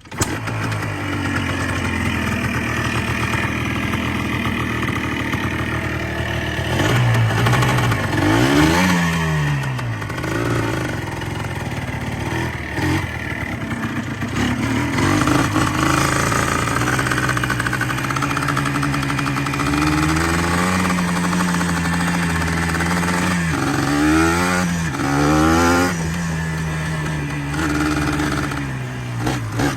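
Yamaha Blaster's two-stroke single-cylinder engine, with an open-baffle exhaust, firing up on the kick right at the start and then running at idle with throttle blips: the revs rise and fall twice, about a third of the way in and again later on.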